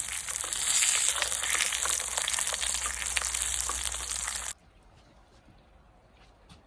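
Food sizzling in a hot pan, a dense hiss full of small pops, that cuts off abruptly about four and a half seconds in, leaving only faint ticks.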